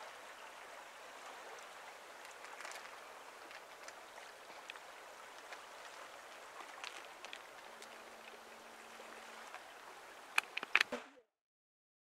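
Faint, steady hiss of gentle water lapping at the shore, with a few scattered sharp clicks and a louder cluster of clicks near the end, after which the sound cuts off suddenly.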